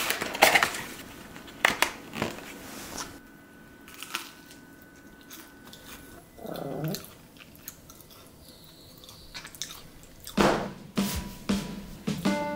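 Crunchy seasoned fried chicken being bitten and chewed in scattered crisp crunches, loudest at the start and again about ten seconds in.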